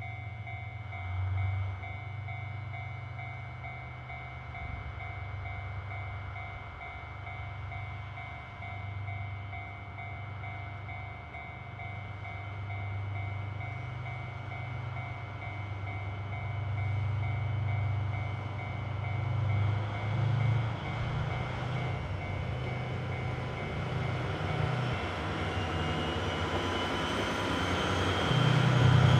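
Diesel locomotive hauling a loaded hopper freight train, approaching slowly with its engine throbbing low and steady. A steady ringing tone sounds in the background through the first half. Near the end, wheel and rail noise grows louder, with a thin high squeal as the locomotive passes close by.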